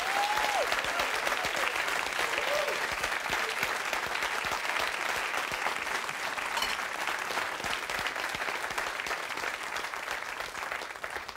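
Studio audience applauding, the applause tapering off near the end.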